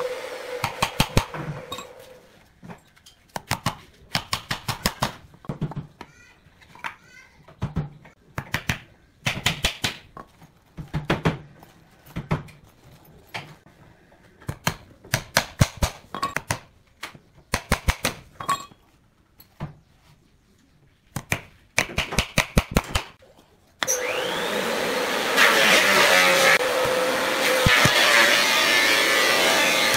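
Nails being driven into pallet wood with the back of a hatchet: sharp knocks in short runs with pauses between. About six seconds from the end, a steady motor hum starts with a rising whine and continues.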